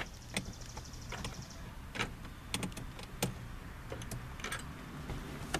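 Hand tools and sockets clicking and clinking in irregular, separate knocks, with a faint high-pitched buzz during the first second and a half.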